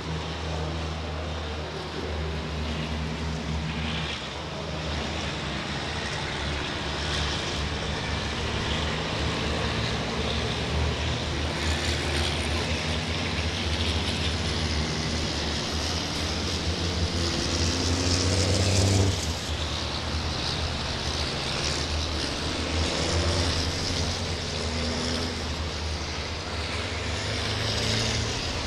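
Race truck's turbodiesel engine running hard as it laps the circuit, its pitch rising and falling throughout, loudest about 19 seconds in.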